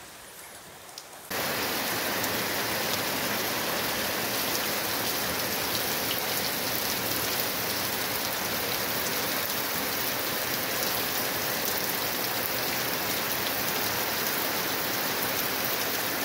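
Heavy downpour: a steady, loud hiss of rain that starts abruptly about a second in.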